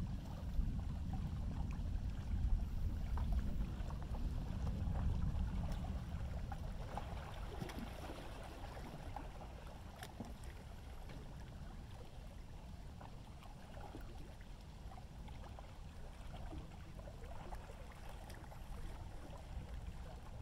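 Thunder rumbling after a nearby lightning flash, loud at first and dying away over about ten seconds into a low, steady background murmur with faint water sounds.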